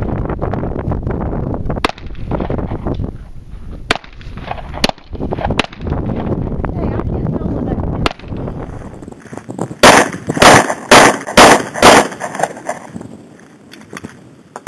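Semi-automatic pistol shots: single shots spaced a second or two apart over wind rumbling on the microphone, then a fast string of about five much louder shots about ten seconds in.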